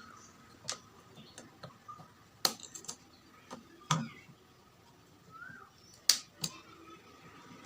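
Irregular sharp clicks and taps of small hard parts and hand tools being handled while an LED bulb is taken apart, with a handful of louder knocks among fainter ones.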